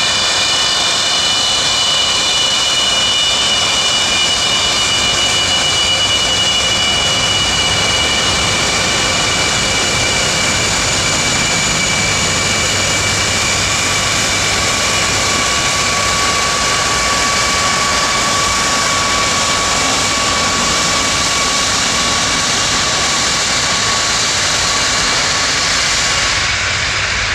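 Aircraft engines running loud and steady, with several high whining tones held at constant pitch. A lower steady tone joins about halfway through.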